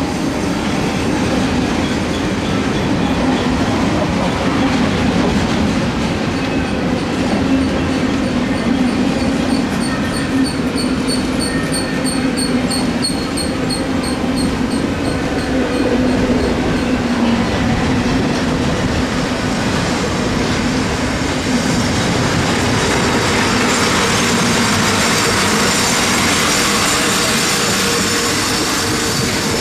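Freight train cars rolling past on the rails, a loud steady noise throughout. For several seconds in the middle a high ringing tone repeats about three times a second.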